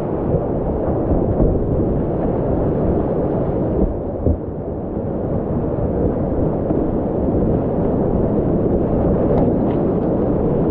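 Whitewater rapids heard from a kayak running them: a loud, steady, dull rush of churning water. Water splashes over the boat near the end.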